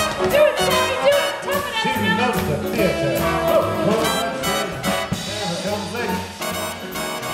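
Live 18-piece big band playing jazz, with the brass section of trumpets and trombones to the fore.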